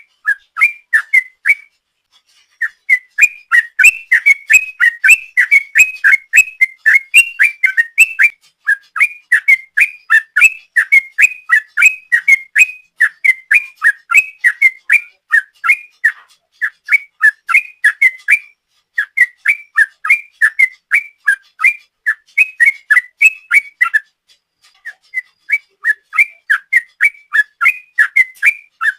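Yellow-vented bulbul (trucuk) singing a long, rapid run of quick bubbly whistled notes, several a second, with a few short breaks.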